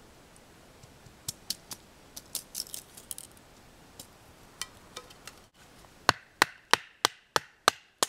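Sharp wooden knocks and cracks from splitting thin kindling with a blade: scattered taps at first, then about six seconds in a steady run of seven hard strikes, about three a second.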